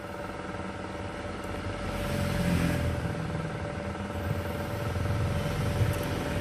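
An engine running steadily, getting a little louder from about two seconds in.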